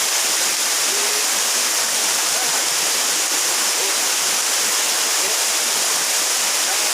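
Waterfall rushing steadily, an even wash of falling water.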